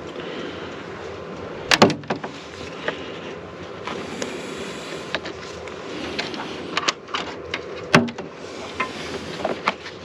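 Several sharp clicks and knocks as a gloved hand handles the wiring and battery clamps under a truck's hood, over a steady rushing noise.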